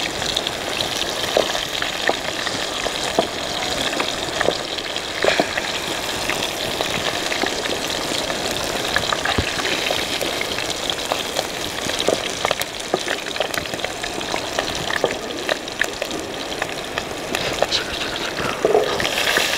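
Flour-coated trout pieces frying in hot oil in a metal frying pan: a steady sizzle with many scattered pops.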